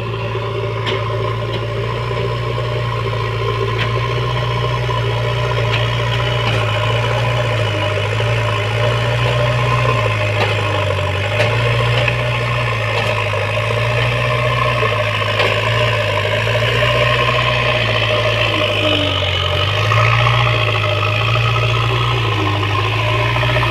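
JCB backhoe loader's diesel engine running steadily. Its note dips and rises slightly every few seconds.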